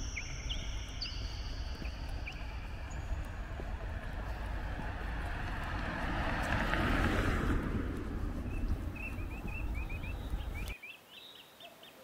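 Steady rumble of road traffic that swells as a vehicle passes about halfway through, with birds chirping over it in the last few seconds. The traffic noise cuts off abruptly near the end.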